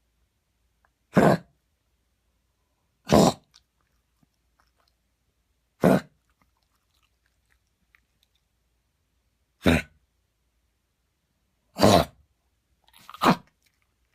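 Dog coughing in a fit: six short, sharp hacks every two to four seconds, the last two closer together near the end.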